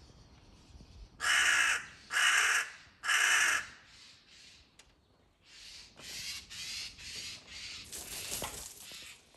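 Crows cawing: three loud harsh caws about a second apart, then a run of quieter caws in quick succession.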